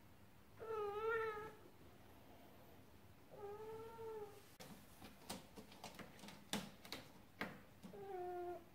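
Domestic cat meowing three times, each meow about a second long: the first wavers in pitch and the last falls at the end. Between the second and third meows comes a run of sharp clicks and knocks.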